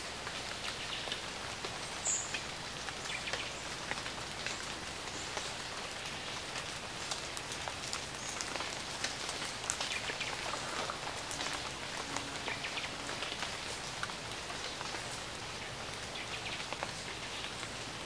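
Rainforest ambience of steady rain: an even hiss of rainfall with dense, irregular drips and ticks on foliage, and a short high chirp about two seconds in.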